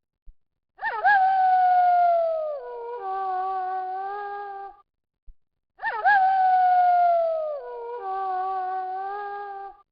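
Wolf howling, twice in the same pattern. Each howl swoops up sharply, holds a long note that slowly falls, then passes into a steadier, lower howl lasting about two seconds. The two howls are separated by a short silence.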